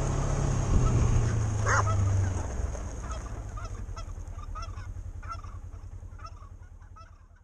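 Domestic geese honking: a loud call about two seconds in, then a run of fainter honks at a little over one a second, over the low hum of a side-by-side's engine. Everything fades away toward the end.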